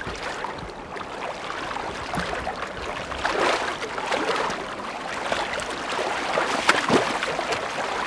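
Shallow river water running and splashing as several people in boots wade through it together, with louder splashes about three seconds in and again near the end.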